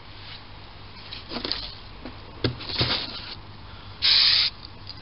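Aerosol spray can of grey primer giving one short hiss of about half a second, about four seconds in. Before it come a few faint clicks and rustles.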